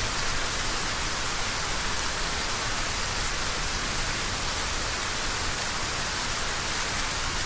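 Steady heavy rain pouring down, an even unbroken hiss of falling water.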